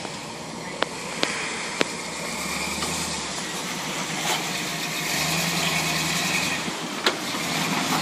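Lifted Chevrolet square-body 4x4's engine running at low revs as the truck crawls down a rock ledge, getting a little louder about five seconds in. Four sharp clicks stand out: three in the first two seconds and one near the end.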